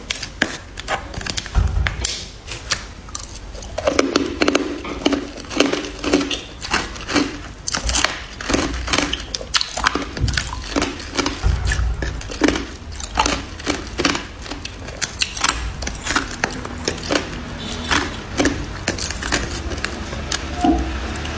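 Metal spoon stirring and scraping through matcha-powdered ice cubes in a container: a steady run of sharp clinks and knocks of ice against the spoon and container, with gritty scrapes between them.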